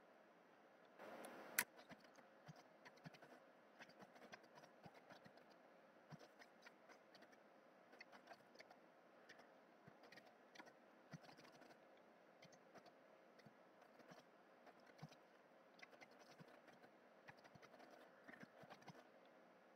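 Faint, irregular clicking of a computer keyboard being typed on, with one sharper click about a second and a half in.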